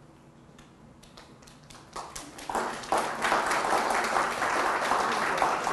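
Audience applauding: a few scattered claps about two seconds in build within a second into steady applause.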